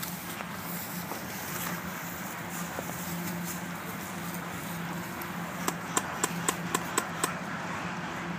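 Airsoft guns firing: about two thirds in, a quick, uneven run of about eight sharp cracks in under two seconds, over a steady low hum and hiss.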